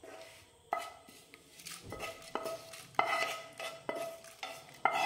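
Wooden spatula knocking and scraping against a steel kadai and a frying pan as toasted melon seeds are scraped into the kadai. There is a series of irregular knocks, about two a second, and each one sets the metal ringing briefly.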